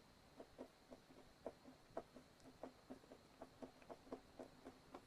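Faint, irregular small clicks and creaks, a few a second, of a hand screwdriver driving a pickup mounting screw into the bass's wooden body without a pilot hole.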